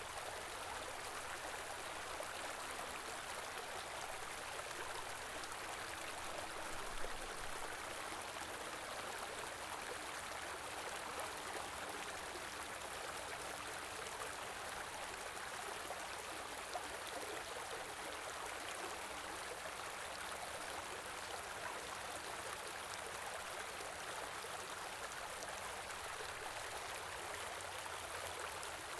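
A small stream flowing steadily, its water rushing and gurgling, with a brief slightly louder splash about seven seconds in.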